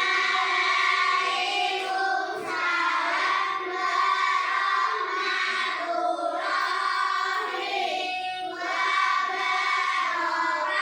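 A group of children singing together, holding long sung notes with brief breaks between phrases.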